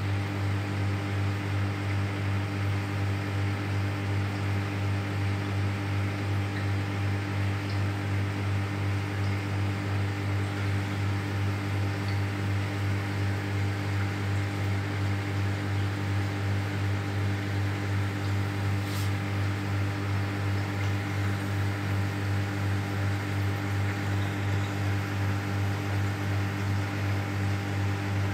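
Steady low electric hum with a row of overtones and a faint hiss, as from a running aquarium pump.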